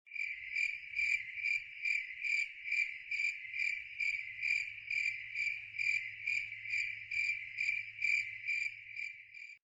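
Cricket chirping: a steady, high, even pulse repeating a little over twice a second.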